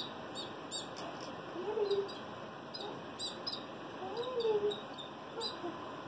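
Baby canaries chirping while being hand-fed: a dozen or so short, high cheeps at uneven intervals, a few every second.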